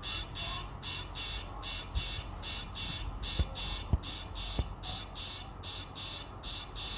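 An electronic alarm or buzzer beeping in a steady rapid rhythm, about three buzzy beeps a second, with a few short low knocks around the middle.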